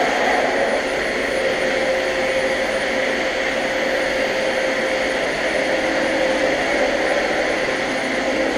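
Vacuum cleaner motor running steadily, a constant whooshing hum with a steady whine.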